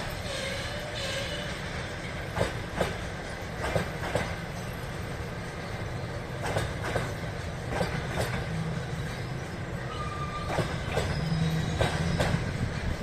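VL80S electric locomotive rolling slowly past, its wheels knocking over rail joints in pairs every couple of seconds. Brief wheel squeals come near the start and again about ten seconds in, over a steady low drone.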